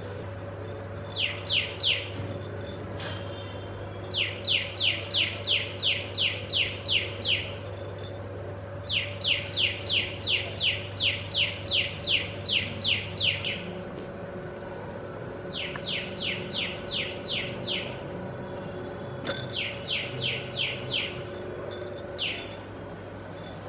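Bird-like chirping call: short high chirps, each falling in pitch, repeated about four times a second in bouts of a few seconds with short pauses between, over a steady low hum.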